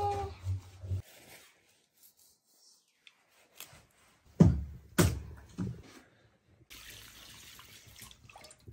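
Three sharp knocks about half a second apart, then a steady hiss of water poured over raw meat pieces in a steel dish to wash them.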